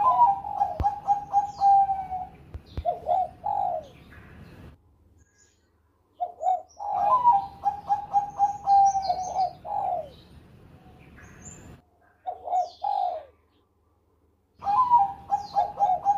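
Zebra dove (perkutut Bangkok) cooing in repeated song phrases. Each phrase is a fast rolling run of notes near 1 kHz that ends in a few separate, lower coos. Three full phrases and a short one are heard, with brief pauses between them.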